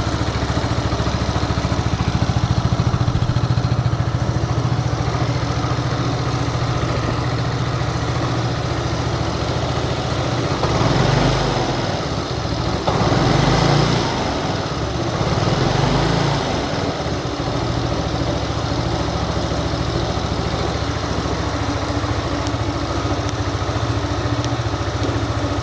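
2010 Yamaha Cygnus X scooter's single-cylinder four-stroke engine idling, with a few short throttle blips in the middle before settling back to idle. The owner hears an abnormal noise in it that appeared at about 600 km, where before it ran full and low.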